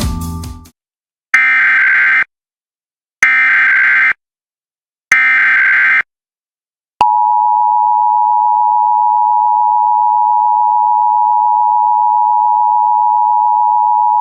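Emergency Alert System header: three bursts of SAME digital data tones, each about a second long and about two seconds apart, each marking the start of an alert. About seven seconds in, the EAS two-tone attention signal starts, two close tones sounded together and held steady.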